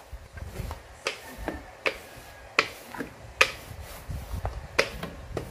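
Rolling pin being rolled back and forth over bread dough on a silicone baking mat. A run of sharp, irregular clicks and knocks comes roughly every half second to second over a low rumble.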